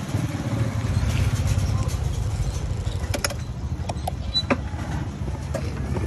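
Yamaha motor scooter's engine running as the scooter rolls along at walking pace, a steady low rumble with a few light clicks.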